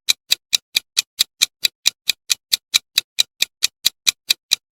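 Countdown timer sound effect: sharp, even clock-like ticks, about four or five a second.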